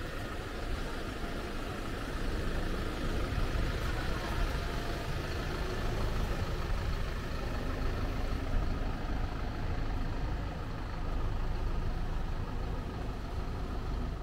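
Steady low rumble of outdoor street ambience, with no distinct events.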